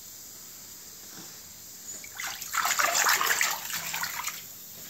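Bathwater sloshing and splashing as a hand sweeps through a full bathtub, for about two seconds from just before the middle of the stretch.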